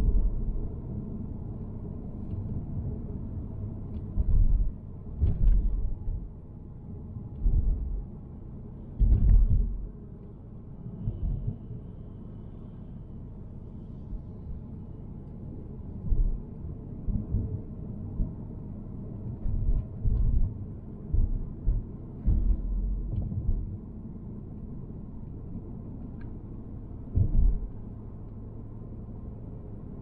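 Car road noise heard from inside the cabin at freeway speed: a steady low rumble with irregular low thuds and surges every few seconds.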